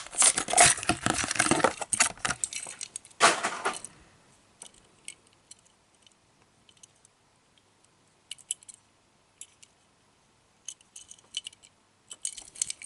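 Rattling and clicking of a 1:64 diecast car and its plastic packaging being handled. The sound is dense for the first four seconds, then comes as scattered light clicks.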